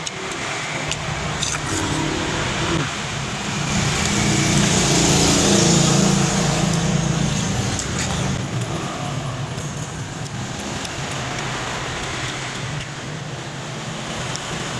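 Motor vehicle noise, a steady rumble and hiss that swells to its loudest about five seconds in and then fades back.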